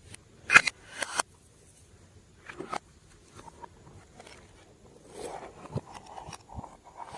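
Glossy slime being squished and worked by hand, giving wet sticky pops and clicks in short bursts. The sharpest pop comes about half a second in.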